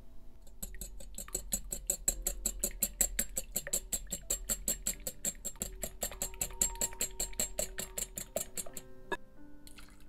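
Wire whisk beating eggs and sugar in a glass bowl: rapid, even clicking and tapping about five strokes a second, stopping about nine seconds in. Soft piano background music plays underneath.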